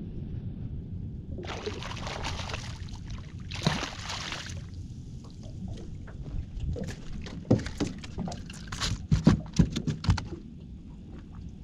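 A small flathead splashing at the surface beside the boat, in two bursts in the first five seconds. From about six seconds in comes a run of sharp knocks and thumps as the fish is lifted aboard and flaps against the boat and deck, loudest around nine seconds in.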